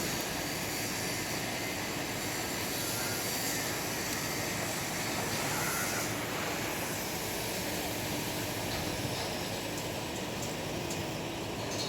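Hydra mobile crane's diesel engine running steadily, a constant even noise.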